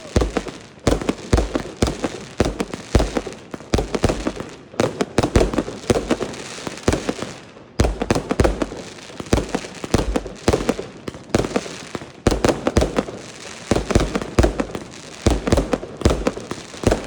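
Aerial fireworks display: shells bursting in quick, continuous succession, a dense run of loud bangs several a second.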